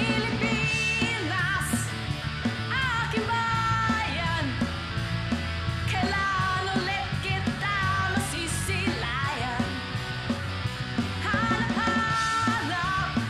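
Alternative rock song: a woman's voice singing a wavering melody over electric guitar, bass and drums.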